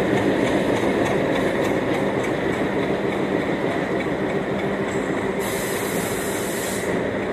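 Diesel locomotive rolling past and away, engine running and wheels clicking over rail joints during the first couple of seconds, the sound slowly fading. A high hiss breaks in about five and a half seconds in and lasts over a second.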